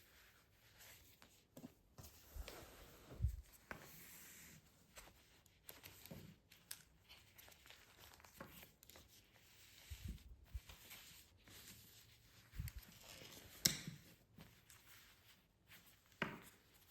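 Intermittent rustling and handling noises with a few sharper tearing sounds, loudest about three seconds in and again about three-quarters of the way through.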